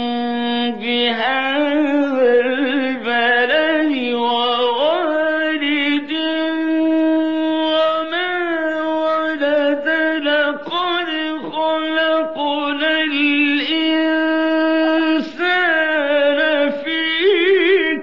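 Solo male Qur'an recitation, melodic and unaccompanied. One voice holds long notes with winding ornamented turns, pausing only briefly for breath now and then.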